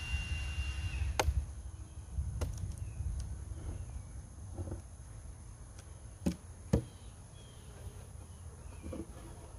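A few scattered sharp knocks and clicks, the loudest two close together past the middle, over a low rumble that fades after the first few seconds.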